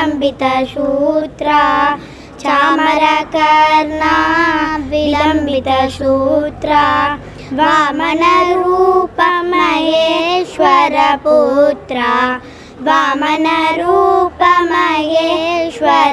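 Two young girls singing a Hindu devotional song to Ganesha in phrases, with short breaks between lines.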